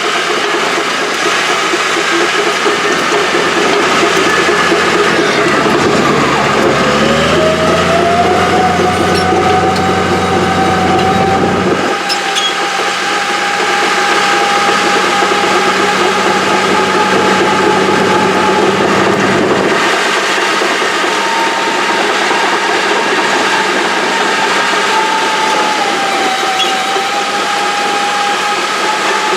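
Old Caterpillar heavy-equipment engine running steadily, with a whine that rises in pitch about seven seconds in as the engine speeds up, then holds and dips briefly near the end.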